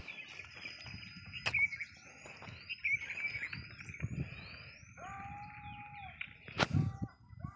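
Birds calling outdoors: a run of quick rising chirps, then a held mid-pitched call, over a steady high buzz. Underneath, low rustling as the dog roots in the straw and cloth of a wooden cot, with a sharp knock about a second and a half in and a louder one near the end.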